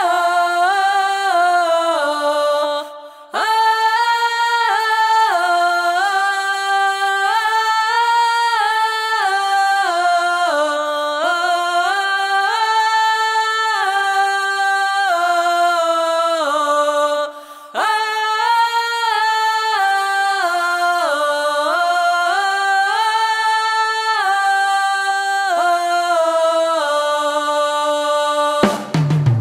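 Two women singing a Polish folk-style song unaccompanied, in two-part harmony, in long held phrases with a short pause for breath twice. Right at the end the band comes back in.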